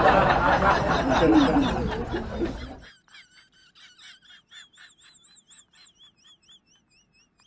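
A loud, noisy stretch that cuts off abruptly about three seconds in. It is followed by faint high-pitched chirps, each rising and falling, repeating about three times a second.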